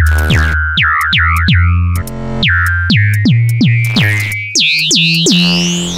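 Oscilloscope music: an electronic synthesizer track whose stereo signal draws the spinning planet figures on the scope screen. Sharp hits come about three times a second, each dropping quickly in pitch into steady tones over a deep bass. Near the end a high tone glides up and back down.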